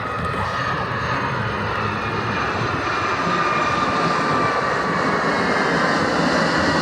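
Jet airplane flying past at an airshow: a steady engine rush whose whine slowly falls in pitch as it goes by, growing a little louder toward the end.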